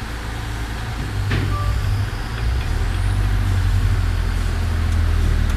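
Diesel engine of a backhoe loader running under load, a low rumble that grows louder about a second in and holds steady, with one short knock about a second in.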